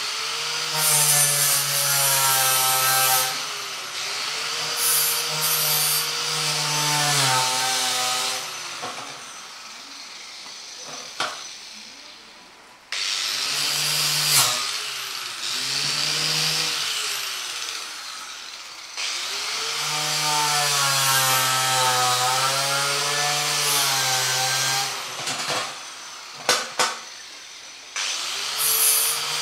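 Electric paint spray gun running in bursts of a few seconds as it sprays a metal ammo box: a motor hum whose pitch wavers under a wide spray hiss, with about five bursts, a longer pause in the middle, and a few sharp clicks between them.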